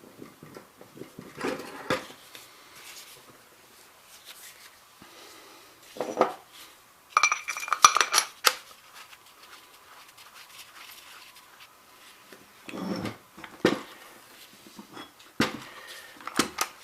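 Steel parts of a Ramset 122MD powder-actuated tool clicking and clinking as they are handled and fitted together during reassembly, with a short run of ringing metallic clinks about halfway through.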